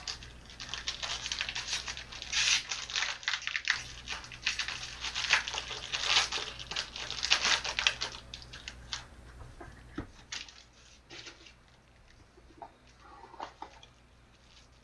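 Clear plastic wrapping crinkling and tearing as it is pulled off a trading card box by hand. It is dense for roughly the first nine seconds, then thins to a few scattered rustles and taps.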